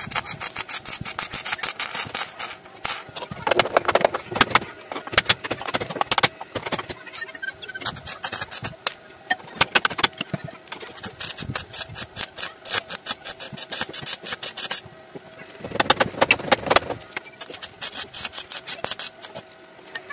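Stick (arc) welder crackling as a steel patch plate is welded onto a rusted-through car chassis rail, in long runs with a short break near the three-quarter mark.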